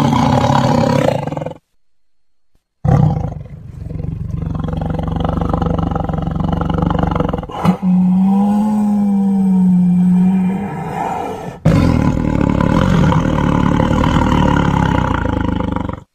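Big cat roaring and growling in several loud, separately spliced clips. Each clip starts and stops abruptly, with a short silent gap about two seconds in.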